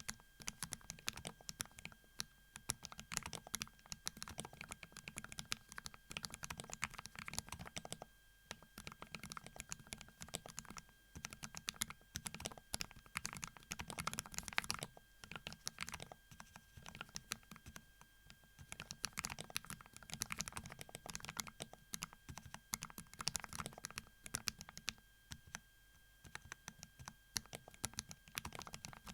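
Typing on a Kapowaz x Keyreative KAP Generation mechanical keyboard fitted with MZ Yezhou Y3 linear switches: fast, continuous runs of keystrokes with a few short pauses.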